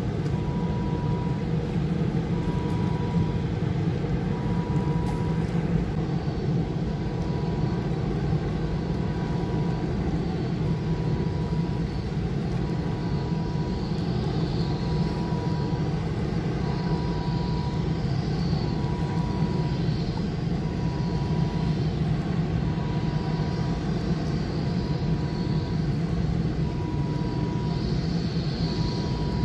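Steady low mechanical rumble, with a short high beep repeating about every second and a quarter.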